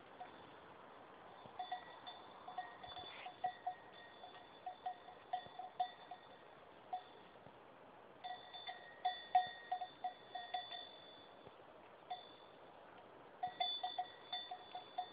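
A goat's metal bell clanking irregularly as the animal moves, in runs of quick strikes broken by short pauses.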